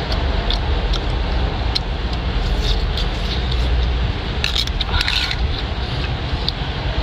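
Steady low rumbling background noise, with a short clatter of scallop shells clicking against each other and the pan about four and a half to five seconds in.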